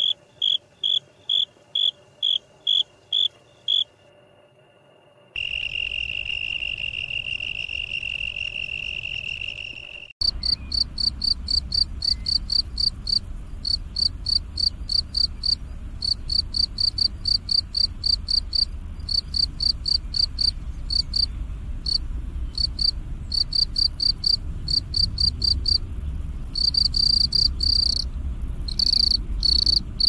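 Crickets chirping: evenly spaced high chirps, a brief pause, then an unbroken high trill for about five seconds. From about ten seconds in comes a louder, higher chirping at about three to four chirps a second over a low rumble.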